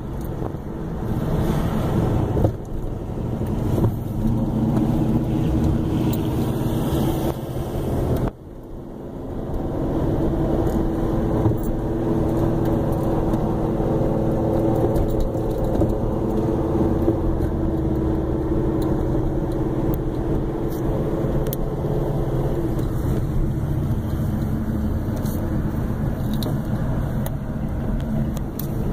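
Car driving, heard from inside a car's cabin: engine drone and road noise. The sound drops out briefly about eight seconds in, then the engine holds a steady drone.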